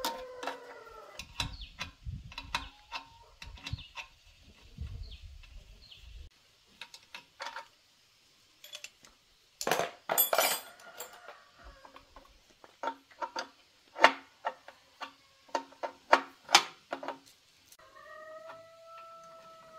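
Metal hand tools clinking and clanking in sharp, irregular knocks: a wrench on the compressor pump's fittings and spanners rattled in a toolbox. Near the end a faint, drawn-out animal call.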